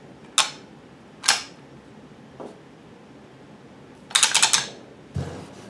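Shift arm of a Harley-Davidson tank-shift 4-speed transmission lid worked by hand, the shift drum clicking as the detent spring snaps it into each gear position. Two sharp clicks about a second apart, then a quick rattle of several clicks about four seconds in, and a dull knock near the end.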